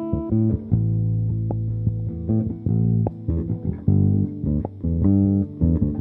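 Electric bass guitar played solo through effects in a free improvisation: held low notes ring under a run of quick plucked notes.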